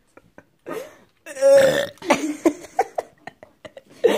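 A person burping loudly once, a pitched burp of about half a second that comes about a second and a half in, followed by a few short clicks and brief sounds.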